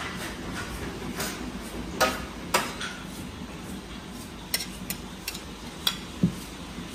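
A flat metal spatula scraping sliced doner meat out of a container, with a string of sharp clinks and knocks, the loudest about two seconds in and near the end, over a steady low kitchen hum.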